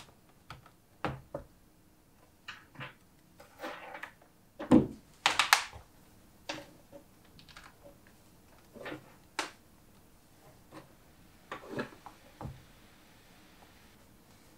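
Irregular clicks, taps and knocks of a laptop and its cable being handled on a wooden desk: the lid opened, a cable plugged in, keys pressed. The loudest knocks come around the middle.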